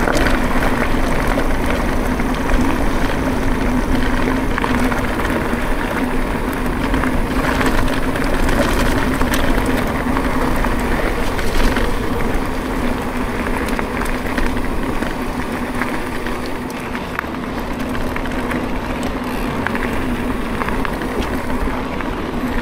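Electric mountain bike rolling fast downhill on gravel: tyre noise and wind on the microphone, with a steady low hum and scattered clicks and rattles from the bike.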